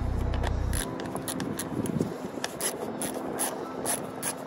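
Socket ratchet clicking in short strokes as it backs out a bolt holding the plastic fender liner to the bumper, with light scraping of the tool against the parts. A low, steady hum cuts off about a second in.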